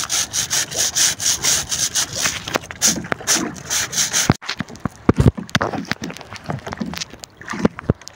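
Rhythmic rasping scrape, about four strokes a second, of a growth-covered fish trap's mesh being hauled and rubbed against the boat. After about four seconds the scraping stops suddenly, giving way to scattered knocks and a few dull thumps.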